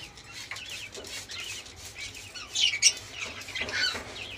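Caged pet birds chirping and calling in short bursts, loudest about two and a half to four seconds in, as they are misted with a water spray for a bath.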